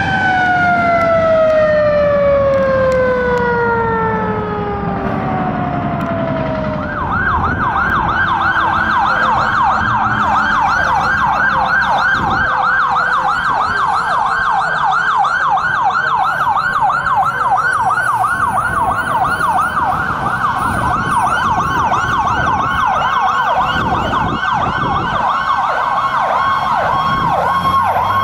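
Fire truck sirens. One siren winds down in a long falling tone over the first six seconds or so. About seven seconds in, an electronic yelp starts, sweeping quickly up and down about three times a second.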